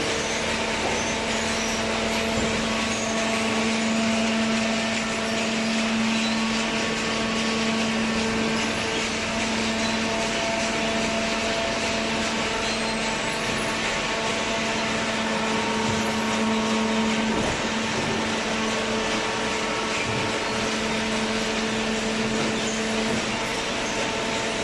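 Hydraulic cardboard baler running: a steady mechanical hum with a whine of evenly stacked tones from its motor and hydraulic pump, the lowest tone dropping out near the end.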